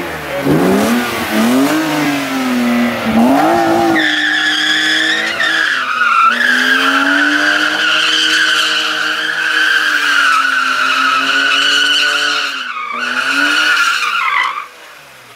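BMW E36 M3 doing donuts: its straight-six revs up and down, and from about four seconds in the rear tires squeal steadily over the engine. The squeal dies away shortly before the end.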